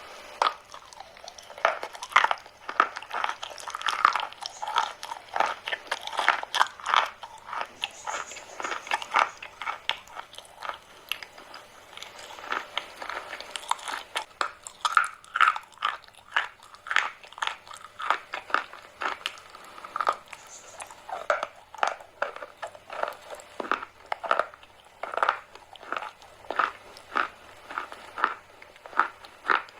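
Close-miked biting and chewing of eating chalk: a steady run of sharp, brittle crunches, roughly two a second.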